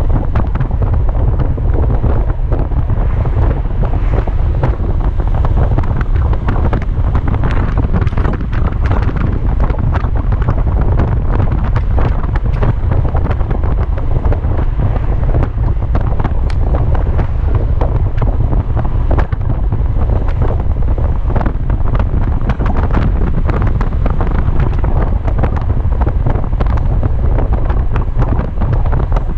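Heavy wind buffeting on the microphone of a Kymco Xciting 250i scooter riding at speed, a steady deep rumble, with the scooter's engine and road noise under it.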